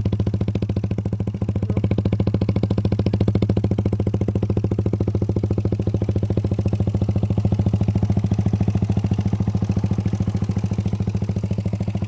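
Suzuki Raider 150's single-cylinder four-stroke engine idling through an open NLK racing pipe: a loud, steady, evenly pulsing exhaust beat that holds one pitch throughout, with no revving.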